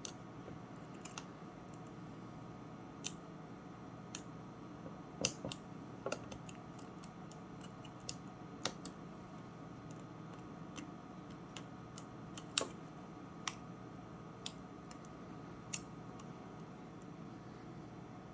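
Master Lock combination lock being picked by hand: sparse, irregular small sharp clicks, about a dozen, with two louder ones about five seconds in and near the middle, over a steady low hum.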